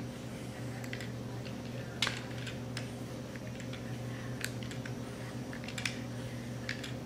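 Light, irregular clicks and taps of chocolate curls being shaved and dropped onto a frosted cake, the sharpest about two seconds in, over a faint steady low hum.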